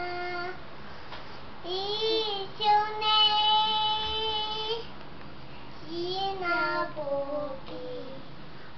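A young girl singing unaccompanied: a held note ending about half a second in, then two short sung phrases with sliding notes and pauses between them, the first ending on a long held note.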